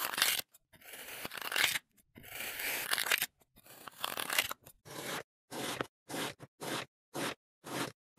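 A blade cutting through moulded kinetic sand, miked right on the blade: four long, gritty cuts through a sand dome, then a quicker run of short slices, about two a second.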